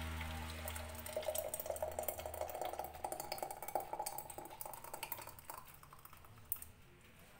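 Thick strawberry jam poured from a metal bowl into a glass jar: a wet pouring and filling sound with many small clicks, busiest from about a second in until about five and a half seconds, then fading as the pour ends.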